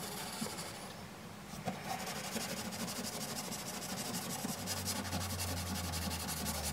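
Toothbrush bristles scrubbing a baking soda and bleach paste into the rubber door seal of a front-loading washing machine, in quick back-and-forth strokes to lift black mould.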